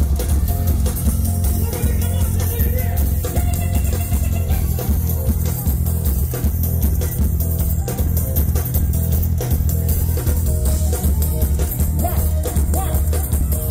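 Live calypso band music over a loud sound system, with a heavy bass line, guitar and drum kit playing without a break.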